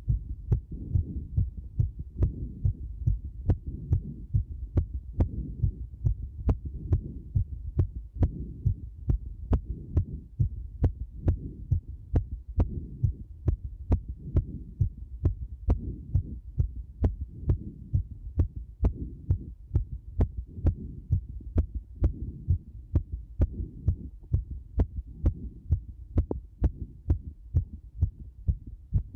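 Heartbeat recorded close up: steady low thumps, each with a sharp click, a little over one beat a second.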